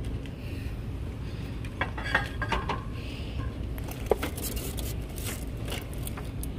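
Plastic-wrapped decor items being handled on a store shelf: scattered light clicks and clinks as hard pieces knock against each other and the shelf bin, over a steady low background hum.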